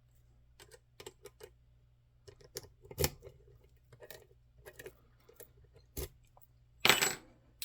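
Small metal lockpicking tools and a key being handled on a hard surface: scattered light clicks and taps, a louder clack about three seconds in and another about six seconds in, and a short rattle or scrape near the end.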